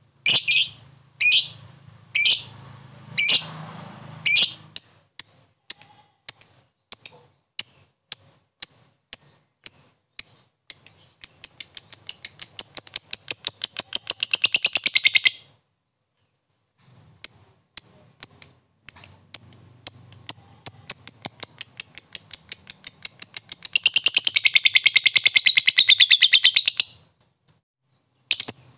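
Lovebird calling: sharp single chirps, the 'ngetik' ticking, at first about one a second, quickening until they run together into a long, fast chattering trill, the 'ngekek', that stops abruptly. After a short pause the ticking starts again and builds into a second long trill, with single chirps returning near the end.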